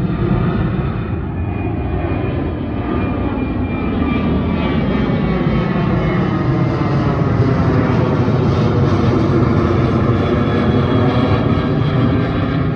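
Jet airliner departing under takeoff power: a loud engine rumble with whining tones over it, swelling louder toward the middle of the pass.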